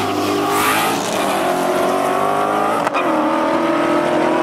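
Car engine revving hard under full acceleration, its pitch climbing steadily; about three seconds in it drops sharply at a gear change, then climbs again.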